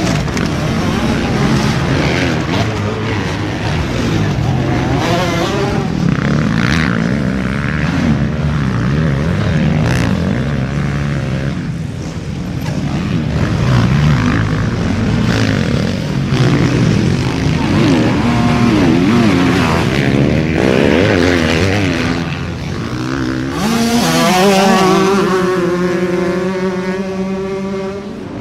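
Several motocross bikes racing, their engines revving up and down as they climb and corner. Near the end one bike's engine stands out, its pitch rising and falling.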